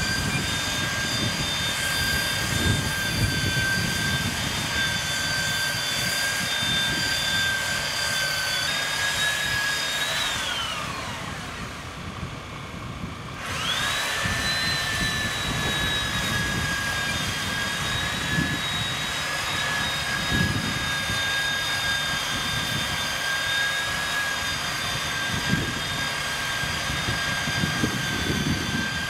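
Porter-Cable biscuit joiner's electric motor running with a steady high whine while it cuts slots in lumber. About ten seconds in it is switched off and winds down with a falling whine. A few seconds later it spins up again and runs on.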